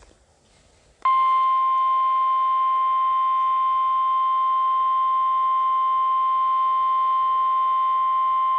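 NOAA Weather Radio warning alarm tone: a single loud, steady tone near 1 kHz that starts suddenly about a second in and holds unchanged. It is the alert signal that precedes a warning broadcast, here a severe thunderstorm warning.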